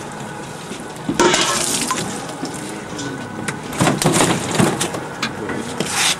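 Wet splashing and hard clattering in a plastic fish tub on a boat deck as a freshly caught fish is pushed in and packed, with sharp irregular knocks. The loudest bursts come about a second in and again around four seconds in.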